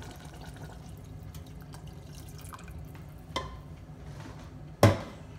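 Water pouring from a jug into an aluminium pressure cooker pot of fried vegetables. There is a small click about three and a half seconds in, then a sharp knock near the end, the loudest sound.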